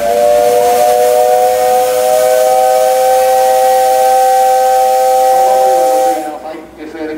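Steam locomotive whistle (JR Kyushu 8620-class No. 58654) blowing one long blast of about six seconds, a steady chord of three tones, before the train departs; it cuts off abruptly.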